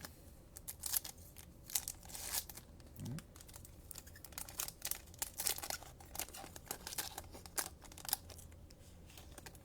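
A trading-card pack's plastic wrapper being torn open and crinkled, with the cards inside handled: a run of short, sharp crackles and clicks that thins out near the end.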